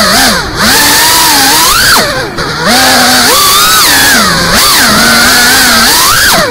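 FPV racing quadcopter's brushless motors and propellers whining, the pitch swooping up and down with the throttle. The sound briefly drops away twice, near the start and about two seconds in, as the throttle is chopped.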